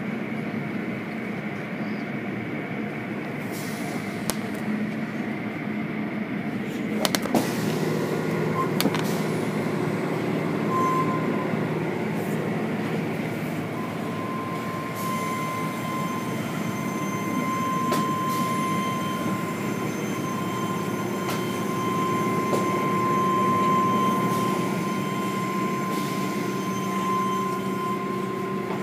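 Automatic tunnel car wash machinery running: a steady mechanical rumble and hiss of motors and water spray. A few sharp knocks come about seven to nine seconds in, and a thin steady whine joins from about halfway.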